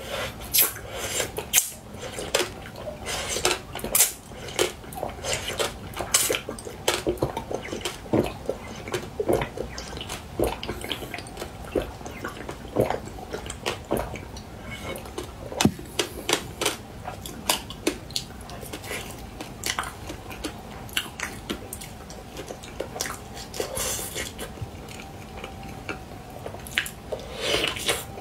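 Close-miked eating: an irregular run of sharp crisp crunches and clicks, several a second, from biting and chewing brittle, glassy food, with a louder cluster near the end.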